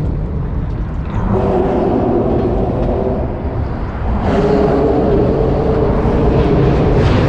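Steady low rumble with a humming drone that swells about a second in and again about four seconds in.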